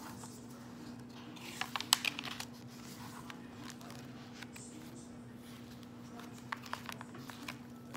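Paper pages of a handmade journal being handled, crinkling and tapping in two short clusters, about two seconds in and again near the end, over a steady low hum.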